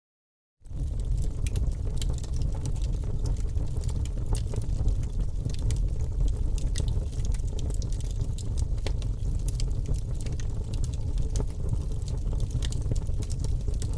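Wood fire crackling in a fireplace: a steady low rumble of flames with many small sharp pops and snaps. The sound cuts out at the very start and comes back just under a second in.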